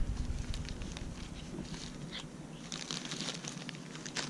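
Thin plastic bag crinkling and crackling in irregular bursts as a cat feeds with its head inside it and moves about with the bag still on its head.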